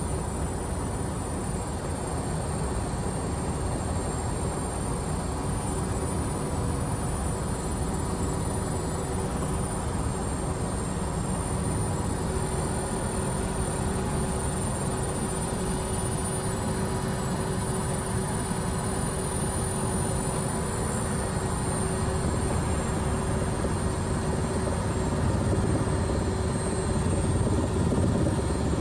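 Helicopter rotor and turbine engine running steadily, heard from aboard the helicopter: a rapid chop of the rotor blades under a high steady whine. It grows slightly louder near the end.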